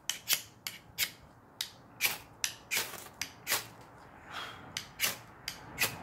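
A striker scraped again and again down a ferrocerium rod (fire steel), throwing sparks: a quick series of short, hissy scrapes, about three a second.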